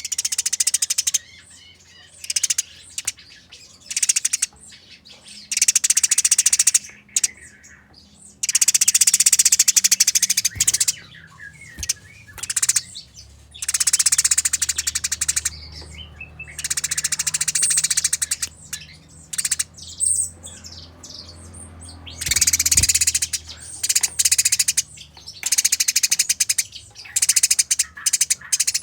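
Eurasian tree sparrows fighting, giving bursts of rapid, harsh chattering calls. The bursts last from a fraction of a second to about two seconds, with short gaps between them.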